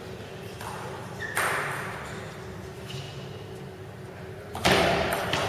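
Table tennis ball struck by a bat: two sharp clicks, one about a second and a half in and a louder one near the end, each echoing off the walls of a large hall.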